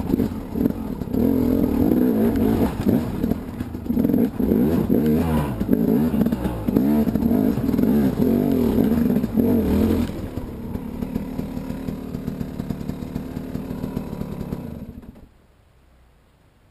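KTM 300 two-stroke enduro motorcycle engine revving up and down while riding. About ten seconds in it settles to a lower, steadier note, and a few seconds later the sound drops away to faint.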